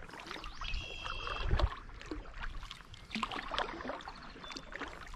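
Kayak paddle strokes: the blades dipping into calm water, with drips and small splashes coming off the paddle. A low knock comes about a second and a half in, and a short high steady tone sounds about a second in.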